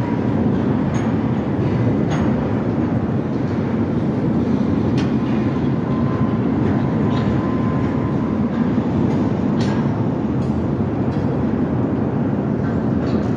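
Freight train of railroad tank cars rolling past at a street crossing: a steady rumble, with a few sharp clicks scattered through it.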